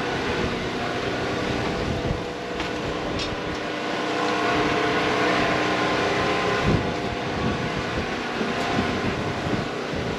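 Wind rushing over the microphone in an uneven rumble and hiss, with a steady droning hum of several tones underneath.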